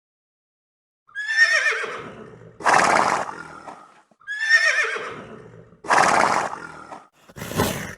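A horse whinnying twice, starting about a second in: each whinny is a quavering high call that drops in pitch, followed by a loud, rough, breathy burst. A shorter rough burst comes near the end.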